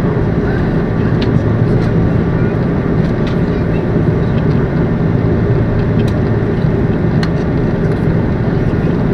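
Airbus A330-200 cabin noise from a seat ahead of the wing during the climb after takeoff: a steady, deep drone of the jet engines and rushing air, with a few faint ticks.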